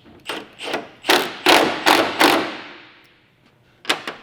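A series of sharp knocks, about six in a row at roughly two a second, getting louder and echoing, then one more knock near the end.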